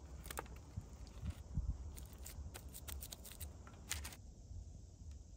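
Scattered light clicks, crinkles and a few soft thumps from hands working over a cling-film-covered board, laying a sheet of nori onto spread rice. The handling noises stop about four seconds in.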